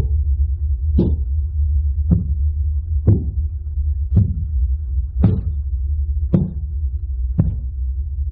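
Background sound effect of a horror clip: a low steady drone with a dull thump repeating evenly about once a second.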